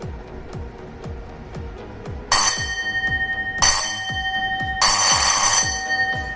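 Electric gong doorbell ringing in three short bursts about a second apart, starting about two seconds in, each a bright metallic ring whose tones hang on after it. Background music with a steady beat plays underneath.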